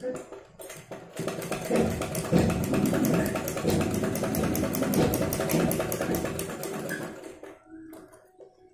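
Domestic sewing machine stitching a seam through fabric: a rapid, even clatter of the needle mechanism that starts about a second in and winds down to a stop near the end.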